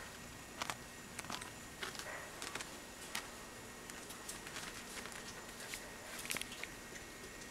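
Light, irregular scratchy clicks of sugar gliders' claws scrabbling over fabric couch upholstery, over a faint steady hiss.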